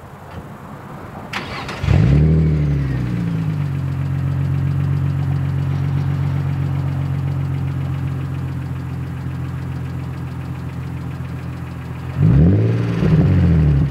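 Nissan 350Z's 3.5-litre V6 breathing through an Injen SES cat-back exhaust with a resonated X-pipe. It cranks briefly and catches about two seconds in, flares up and settles to a steady idle. Near the end the throttle is blipped twice in quick succession.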